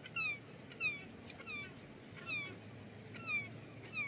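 Gulls calling: a run of short cries that fall in pitch, coming one or two a second.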